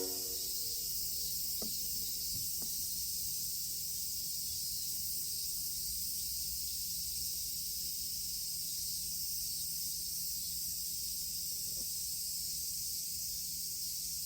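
Cicadas buzzing in a steady high-pitched chorus after the last note of the outdoor loudspeaker chime dies away at the very start, with a faint low hum beneath.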